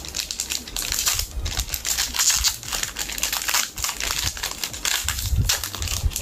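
Foil booster pack wrapper crinkling and crackling in the hands as it is opened and the cards are pulled out, a dense run of quick irregular crackles.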